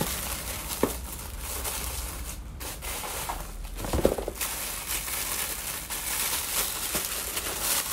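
Clear plastic bags wrapped around a pair of shoes crinkling and rustling as they are handled and pulled open, with a short knock about four seconds in.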